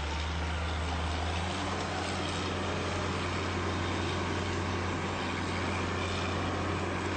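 Heavy construction machinery's engine running steadily with a deep hum, its note shifting slightly about a second and a half in.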